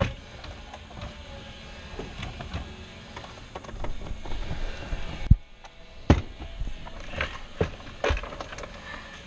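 Irregular knocks, clicks and rustling of hand work on a car's interior around the centre console, with two sharp knocks about five and six seconds in.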